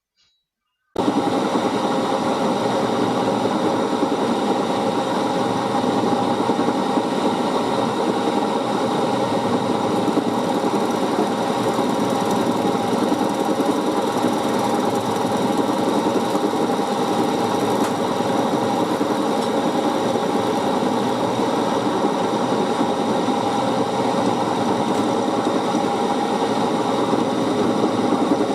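Metal lathe running steadily: a constant mechanical hum with several steady tones that starts abruptly about a second in.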